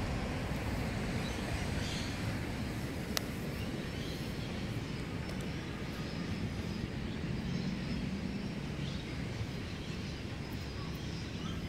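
Steady low outdoor rumble with a few faint bird chirps and one sharp click about three seconds in.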